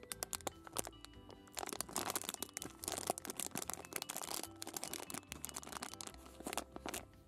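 Plastic gummy-candy wrapper crinkling as it is squeezed and turned over in the hands, in bursts, busiest from about two to four and a half seconds in and again near the end, over soft background music.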